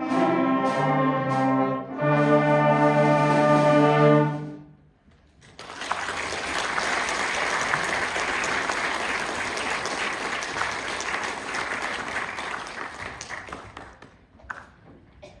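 A youth wind band of brass and woodwinds plays its final held chords, cutting off about four and a half seconds in. After a short pause the audience applauds, dying away near the end.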